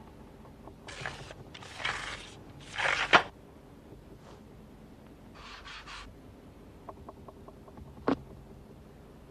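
Sound effects from a stop-motion puppet animation: three scraping, sliding sounds in quick succession, the loudest about three seconds in, then a softer rustle, a few faint ticks and one sharp click about eight seconds in, as a puppet reaches the box on the tilting platform.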